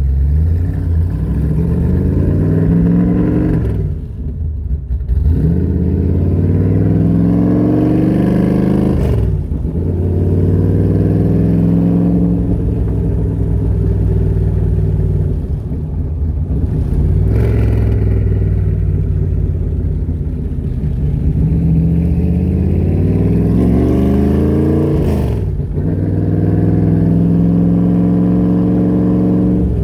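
Factory Five Cobra replica's engine pulling hard on the road: the revs climb in each gear and drop sharply at each upshift, about four shifts in all, the first around four seconds in and the last near the end.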